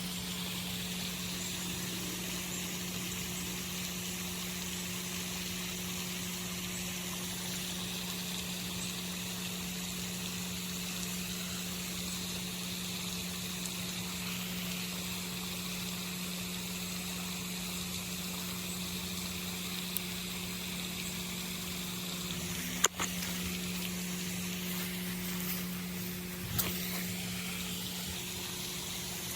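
A steady, low machine hum with an even hiss above it, broken by a sharp click about 23 seconds in and a lighter one near 27 seconds.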